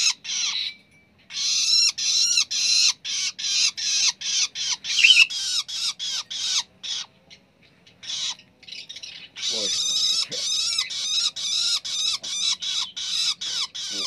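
Fledgling long-tailed shrike (cendet) giving a rapid string of harsh, scratchy begging calls, about three a second, in two runs with a pause of about two seconds in the middle. The chick is calling to be fed.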